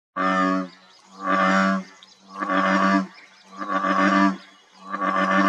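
A frog calling: five drawn-out, low calls, each about half a second long, about one a second.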